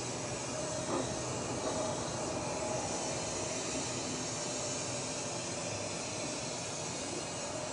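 Small hand torch burning with a steady hiss, its flame heating a stainless steel chimney cap so it can be bent.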